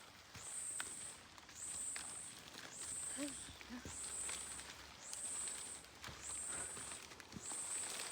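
A calling insect: a high, even buzz that comes in regular pulses of about half a second, repeating roughly once a second.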